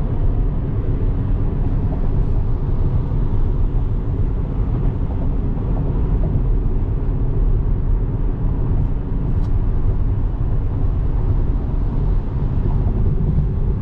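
Steady low road and tyre rumble inside a Tesla Model 3's cabin at freeway speed, with no engine sound since the car is electric.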